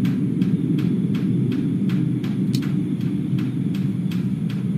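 A steady, loud low rumbling drone in the night sky, like a low-flying aircraft that never passes. Over it, water drips onto a roof in sharp regular ticks, about four a second.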